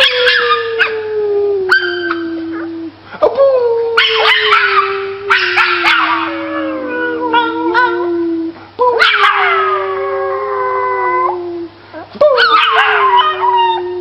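Dog howling: four long drawn-out howls, each sliding slowly down in pitch, with brief breaks between them.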